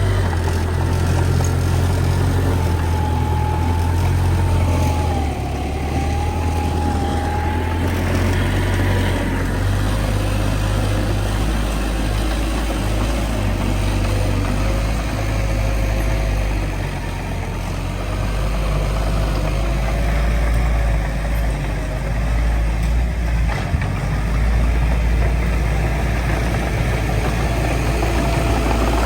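Heavy diesel engine of a bulldozer or dump truck running steadily, its low rumble shifting in strength, with a faint wavering whine above it.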